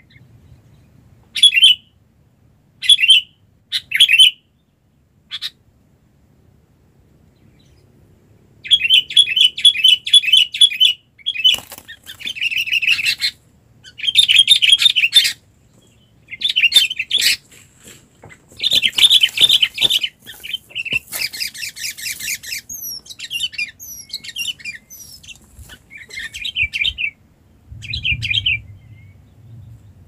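Sooty-headed bulbuls chattering in short bursts, then calling densely and repeatedly from about a third of the way in, with a bulbul flapping its wings as it struggles, caught on the trap stick.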